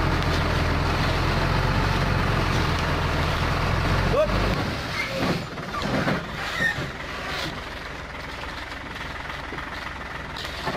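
Hino dump truck's diesel engine running under load, then dropping away sharply about halfway through to a quieter, lighter run.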